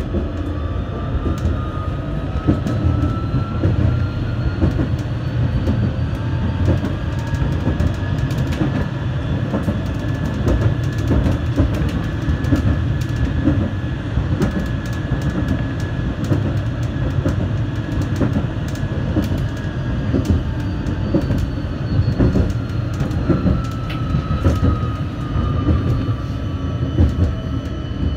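Vityaz-M (71-931M) low-floor tram running, heard from the driver's cab. There is a steady rumble of wheels on rail with frequent sharp clicks. The traction drive's whine rises in pitch as the tram gathers speed over the first several seconds, holds, then falls as it slows near the end.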